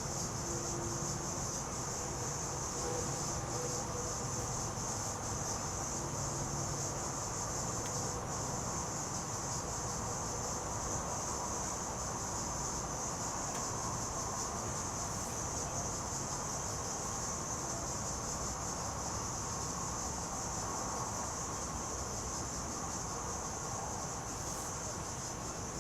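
Steady, high-pitched insect chorus that holds evenly throughout.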